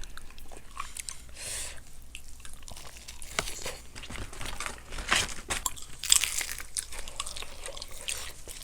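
Close-up crunching and chewing of crispy Kyochon honey fried chicken, in irregular crisp crackles.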